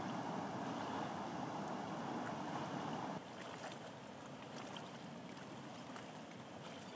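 Rushing water of a small waterfall and rapids, a steady rush that drops suddenly to a softer level about three seconds in.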